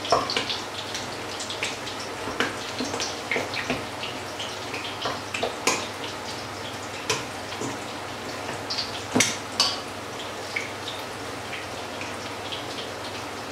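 Food crackling and sizzling in a frying pan, a steady hiss dotted with small pops, together with soft wet squishing from a mixture being kneaded by hand in a stainless steel bowl. A few sharp clicks stand out, two close together about nine seconds in.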